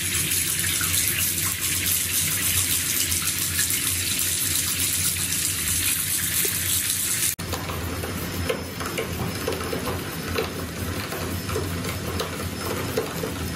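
Tap water gushing steadily from a bath filler spout into a filling bathtub. About seven seconds in the sound cuts off sharply and resumes as the stream splashes into a foaming bubble bath.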